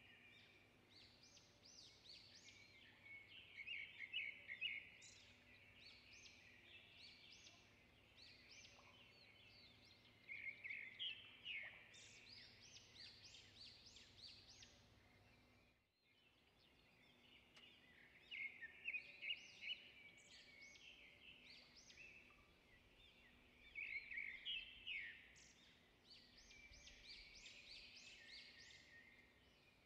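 Faint birdsong: small birds chirping and trilling in bursts every few seconds over a low background hiss, briefly cutting out about halfway through.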